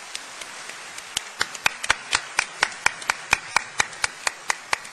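Audience applauding, with a steady beat of sharp, loud claps close to the microphone, about four a second, starting about a second in.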